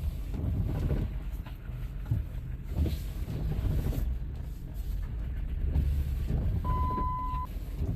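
A 2005 Dodge Ram's engine running at low speed, heard from inside the cab as the truck is driven slowly, with the windshield wipers sweeping. The engine's exhaust manifold leaks through broken studs. A short single beep comes near the end.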